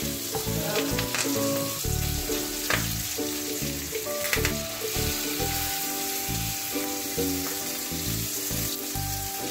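Chilli-coated kalmas and curry leaves shallow-frying in oil in a nonstick pan, a steady sizzle with a few sharp ticks of the spatula as the pieces are turned. Background music with a pulsing bass plays over it.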